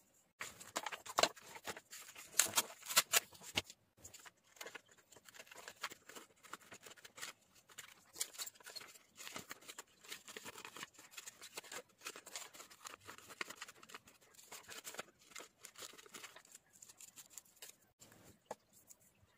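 Scissors snipping through magazine paper: many short cuts in quick runs with brief pauses, dying down near the end.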